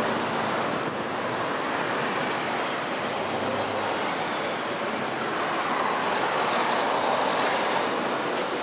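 Steady rushing noise of street traffic, swelling about six seconds in, with a faint low hum coming and going.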